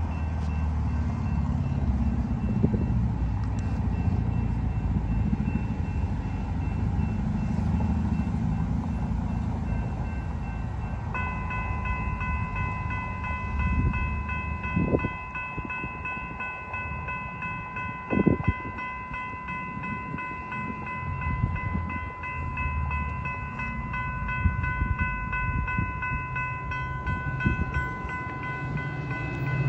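A railroad grade-crossing warning bell starts ringing about a third of the way in and keeps ringing steadily as the crossing activates for an approaching train, over a low rumble, with two sharp knocks a few seconds after it starts.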